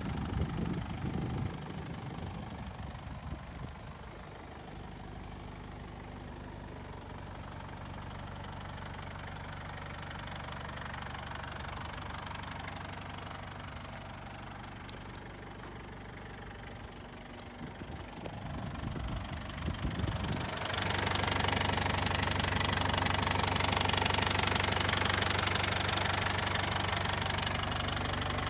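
Toyota TownAce CM70's 3C four-cylinder diesel engine idling steadily with a diesel clatter. It gets louder and fuller about two-thirds of the way through, heard from beneath the truck.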